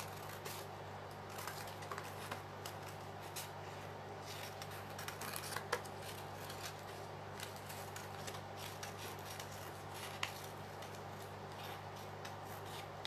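Paper being handled: irregular rustles and light clicks, with two sharper clicks about six and ten seconds in, over a steady low hum.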